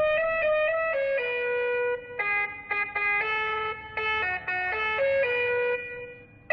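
Basuri telolet horn module playing a tune of stepped horn notes that jump up and down in pitch every fraction of a second, with short breaks between phrases, dying away near the end.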